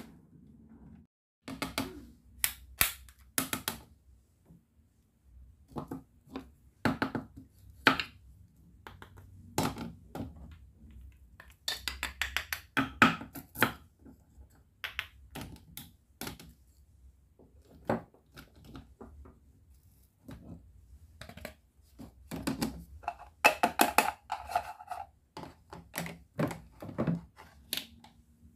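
Plastic and wooden toy kitchen pieces clicking, tapping and knocking as they are handled, including a wooden toy knife cutting toy vegetables on a wooden board. The knocks come irregularly, in quicker clusters about halfway through and again a few seconds before the end.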